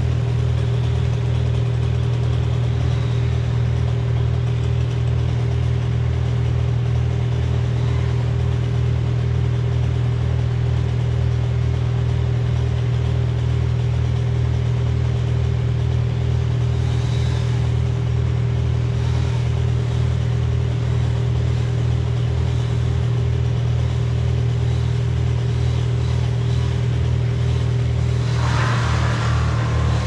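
An engine running steadily at an even speed, a deep unchanging drone with a fainter steady higher tone that drops out near the end.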